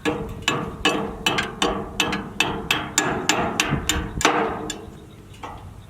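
A quick run of about a dozen sharp knocks, roughly three a second, like hammer blows on metal, with a ringing tone under them. The last knock, about four seconds in, is the loudest, and the knocking stops after it.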